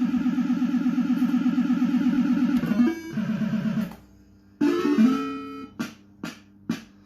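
A JPM Copper Win fruit machine's electronic sound effects: a fast warbling tone pattern that changes about three seconds in and stops a second later, then after a short pause a brief rising jingle followed by three short beeps.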